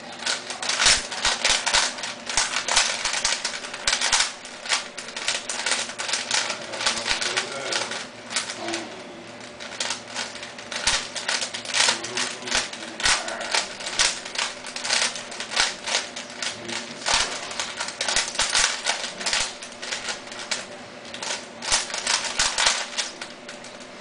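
3x3 Rubik's cube being turned fast: quick plastic clicking and clattering of the layers, in runs of turns with short pauses between.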